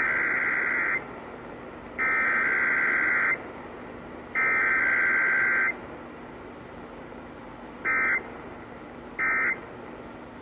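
Emergency Alert System SAME data tones received over AM radio: three long warbling bursts of about a second and a quarter each, a second apart (the header of a Required Weekly Test), then short bursts about a second apart near the end (the end-of-message code). Steady radio hiss and static fill the gaps between bursts.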